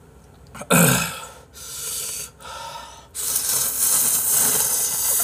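A person slurping hot instant ramen noodles: a few shorter airy pulls, then one long, loud slurp of about three seconds from about three seconds in.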